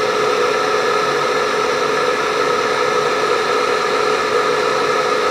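OutBack FX inverter running under a load of about 1.2 kW: a steady whirring hum with a few held tones over it, from its cooling fan and transformer.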